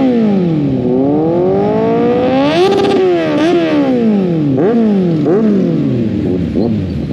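Kawasaki Z800's inline-four engine being revved at rolling speed. The pitch climbs for a couple of seconds to a peak about two and a half seconds in and falls away, followed by several quick throttle blips.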